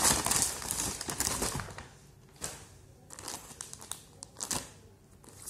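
Brown paper mailer bag crumpling and rustling as it is handled, loudest over the first two seconds, followed by a few short crinkles of clear plastic clothing packets being handled.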